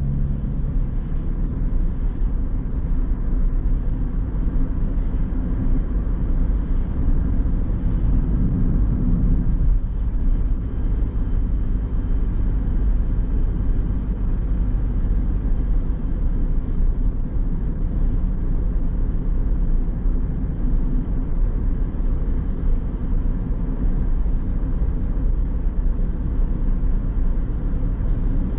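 A car on the move: steady, low road and engine rumble.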